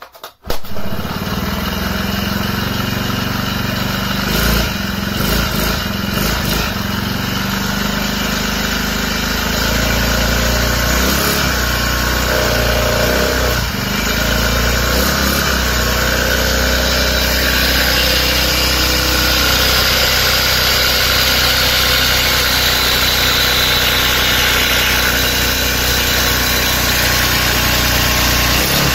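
Small 50cc four-stroke engine running on hydrogen gas, with its air intake blocked off. It catches about half a second in and then runs steadily, its speed wavering a little around the middle.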